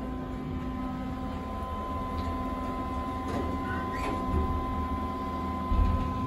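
Otis elevator cab ventilation fan running with a steady hum, loud enough to drown out the drive motor while the car travels up. A low thump near the end.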